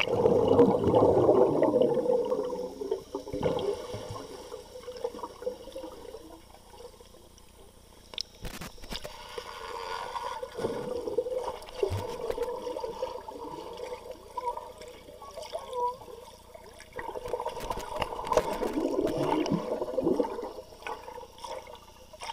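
Pool water heard with the microphone underwater: a muffled rushing and burbling, loudest in the first couple of seconds as the camera goes under, swelling again twice later with bubbles around a swimmer.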